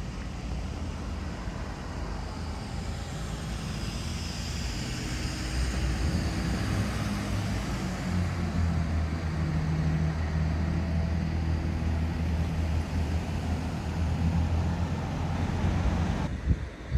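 A vehicle engine running steadily: a low, even hum that grows stronger about halfway through, then cuts off abruptly near the end.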